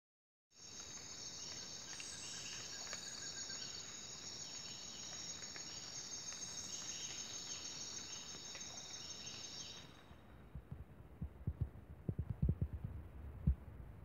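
Steady high-pitched insect chorus over shallow spring water trickling across stones, cutting off suddenly about ten seconds in. Then a run of low thumps.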